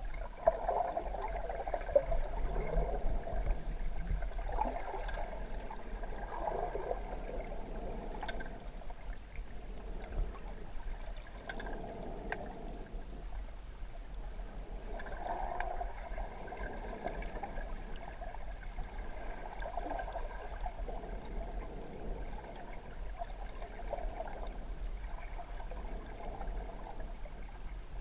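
Muffled underwater water noise picked up by a submerged camera: a wash of water that swells and fades every few seconds over a steady low hum, with a few faint ticks.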